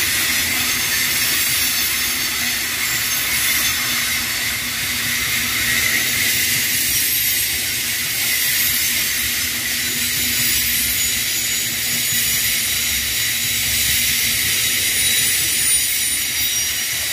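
Grain hopper wagons of a freight train rolling past: a steady rush of wheel-on-rail noise with a high hiss.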